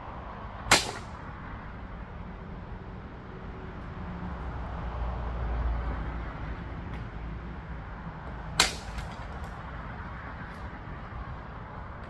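Real steel sword cutting a target in test-cutting practice: two short, sharp cuts, one about a second in and another about eight seconds later, over a steady low rumble.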